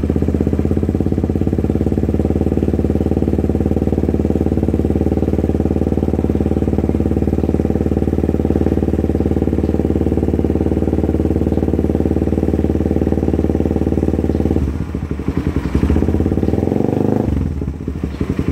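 Motorcycle engine idling through a DBS Thailand aftermarket slip-on exhaust, a deep, bassy note. Near the end the idle is briefly disturbed by a short throttle change before it settles again.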